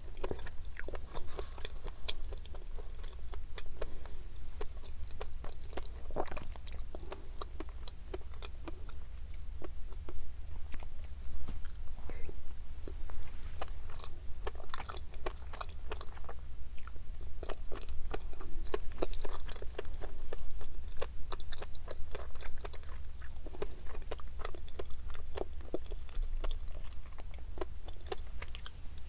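Close-miked chewing with a dense, irregular crackle of tiny pops: fish roe bursting between the teeth.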